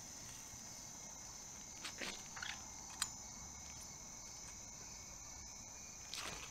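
Steady, high-pitched chorus of night insects such as crickets, with a few brief rustles and a sharp click about three seconds in.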